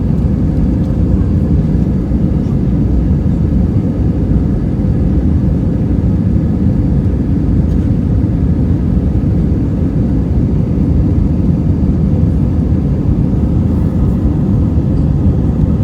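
Airbus A319 cabin noise: a steady, loud rumble of jet engines and airflow heard from inside the passenger cabin, with faint steady engine tones above it.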